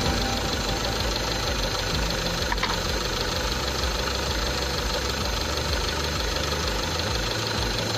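Proton Waja's 1.6 L 4G18 four-cylinder engine idling steadily at about 750–780 rpm, warmed up, with the air-conditioning off. A single brief click about two and a half seconds in.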